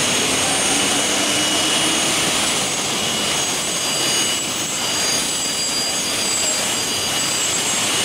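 Steady whine of a 4-axis CNC drilling machine's electric spindle, with several thin high-pitched tones, over a constant din of machinery.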